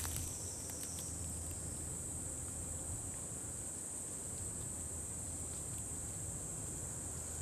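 Insects in the woodland keeping up a steady, high-pitched drone without a break.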